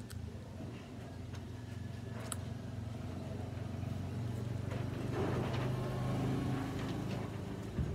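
A motor vehicle's engine running, its low hum growing louder and then dropping away about seven seconds in, with a few faint clicks.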